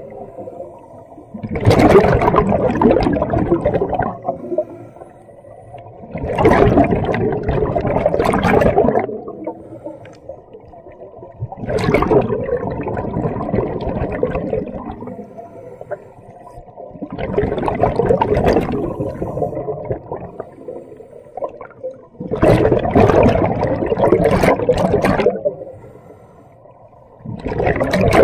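Scuba diver breathing underwater through a regulator: a loud rush of exhaled bubbles about every five seconds, six times, with quieter inhalations between.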